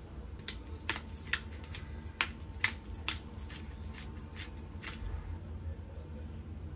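A run of about a dozen irregular sharp clicks and taps, stopping about five seconds in, over a low steady hum.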